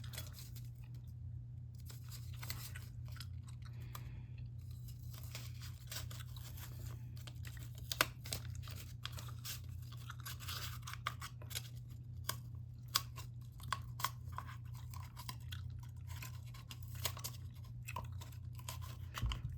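Blue masking tape being handled and worked at: scattered small crackles, clicks and tearing noises, with one sharper click about eight seconds in, over a steady low hum.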